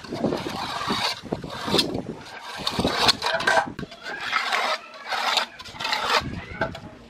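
Mason's steel trowel and metal straightedge scraping against a concrete wall and mortar, in a series of irregular scraping strokes.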